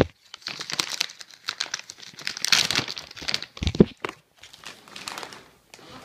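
Crinkling plastic cat-treat bag being opened and handled, a dense crackle that thins out after about four seconds, with one thump just before four seconds in.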